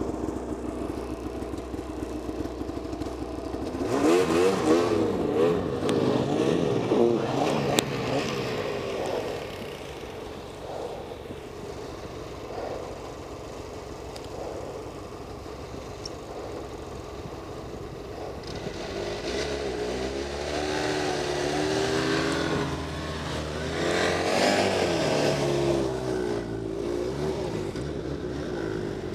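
Snowmobile engines idling steadily, then revving up and down in repeated surges from about 4 to 9 seconds in and again from about 19 to 26 seconds in, as sleds are driven through deep powder.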